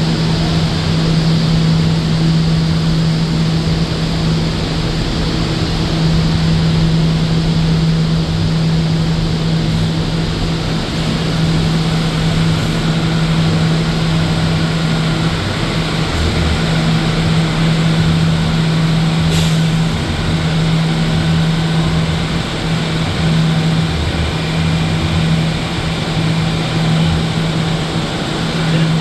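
HVAC system of an R179 New York City subway car running: a steady rush of air over a constant low hum.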